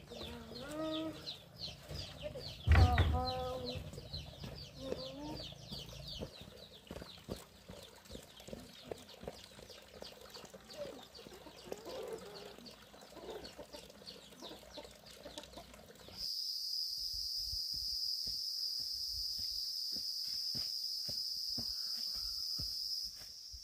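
Chickens clucking, with many quick high peeps, and one louder call with a thump about three seconds in. About two-thirds of the way in, a steady high-pitched insect drone starts abruptly and holds until just before the end.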